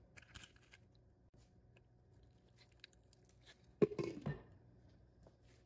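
A glass lid is set down on a glass mixing bowl with one sharp clink and a brief ring a little under four seconds in, covering the marinated chicken to trap charcoal smoke. A few faint clicks of metal tongs setting a foil cup into the bowl come in the first second.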